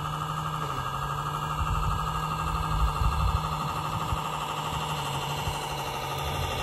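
A steady, even engine hum, like a small engine idling off in the distance, with irregular low rumbles of wind on the microphone in the middle.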